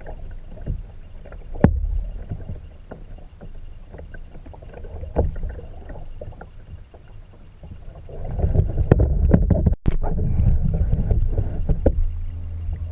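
Kayaking on the water: low wind rumble on the microphone with scattered sharp knocks and water noise, getting louder about two-thirds of the way through.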